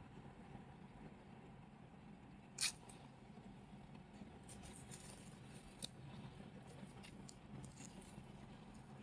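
Quiet room tone with faint rustling and light ticks as a kitten plays with a flower on a shag rug. One sharp click comes about two and a half seconds in, and a smaller one near six seconds.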